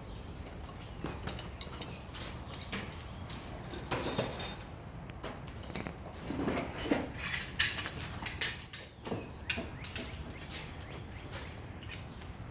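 Light clicks, taps and clattering knocks at irregular intervals, as small hard objects are handled, with a few sharper knocks about three-quarters of the way through.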